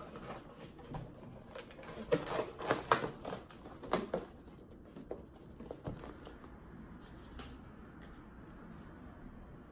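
White cardboard box being closed by hand: the flaps scrape, click and tap as they are folded and tucked shut, in a dense cluster over the first four seconds or so, then a few lighter taps of handling.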